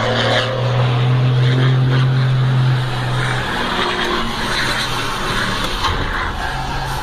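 Diesel engine of a Mercedes-Benz 1620 bus pulling hard under acceleration, a loud steady drone that eases off about three and a half seconds in. Road noise and cabin rattle continue underneath.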